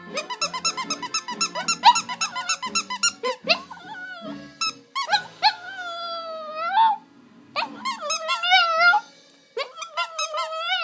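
Chihuahua puppy vocalising: a quick run of short, high-pitched squeaks, then, about five seconds in, three long, wavering cries, one after another.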